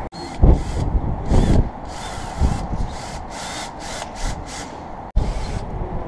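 Strong gusting wind buffeting the microphone: an irregular rumble that surges in gusts, with bursts of high hiss.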